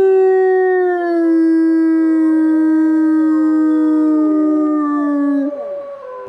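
Gray wolf giving one long, low-throated howl that steps down slightly in pitch about a second in, holds, then slides down and fades near the end.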